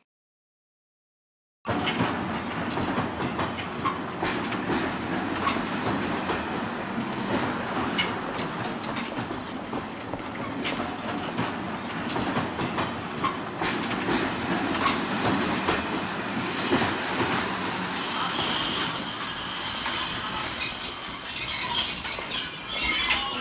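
Near silence for the first two seconds, then a passenger train's carriages rolling past along the platform, the wheels clattering with many small clicks over the rail joints. A steady high-pitched squeal joins in over the last few seconds.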